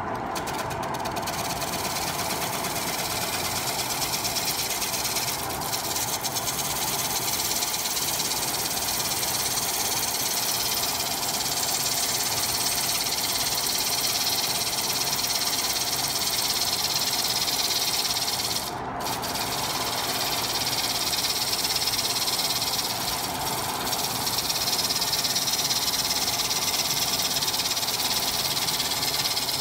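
Wood lathe running while a gouge cuts a spinning spalted-wood bowl: a steady hissing, scraping cut over the machine's hum, with one short break about two-thirds of the way through.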